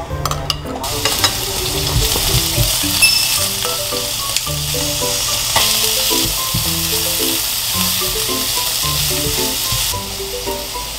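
Thinly sliced pork belly (daepae samgyeopsal) with diced onion and carrot sizzling as it fries in a nonstick pan. The sizzle starts about a second in and eases a little near the end, under background music.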